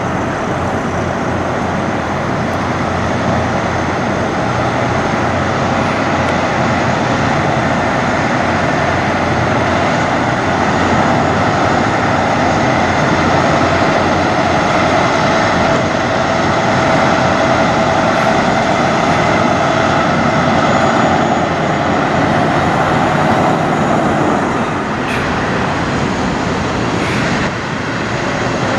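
Diesel engine of a semi-truck running steadily as the tractor-trailer moves slowly at low speed.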